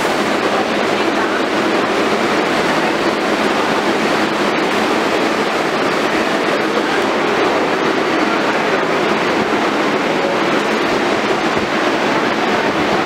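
Steady subway noise around an R142A train standing at the platform with its doors open: a constant, even rumble and hiss with no distinct knocks, chimes or changes.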